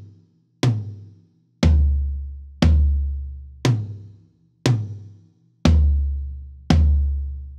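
Vintage Ludwig 12-inch rack tom and 16-inch floor tom, low-tuned with single-ply Remo Ambassador heads and lightly muffled, struck one at a time about once a second. The pattern is rack, floor, floor, rack, rack, floor, floor. Each hit rings out and decays, and the floor tom hits are deeper and longer.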